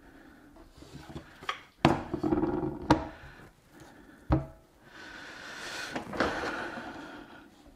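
Wooden board being handled and set down on a bench: a few hard knocks about two, three and four seconds in with scraping between the first two, then a longer rustling, rubbing sound near the end.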